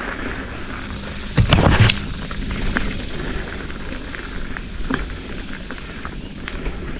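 Full-suspension mountain bike riding a dirt trail on a climb: steady tyre and trail noise with scattered clicks and knocks from the bike, and a louder half-second jolt about a second and a half in.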